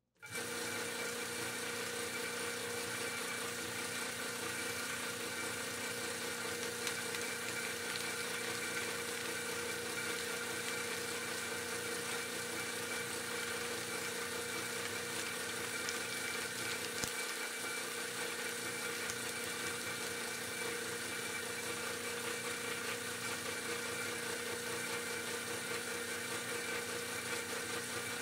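Homemade plastic shredder running steadily, driven by a half-horsepower electric motor through a bicycle chain reduction and a worm-drive gearbox: a steady whirring hum with a few held tones, while a plastic water bottle is fed into its cutters. A single sharp click a little past halfway.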